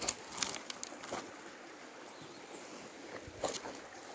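Footsteps and scuffing on dry gravel and leaf litter: a few short, scattered crunches over a faint outdoor background.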